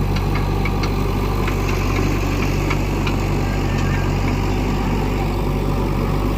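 Diesel engine of a backhoe loader idling steadily, with a few faint clicks over the first few seconds.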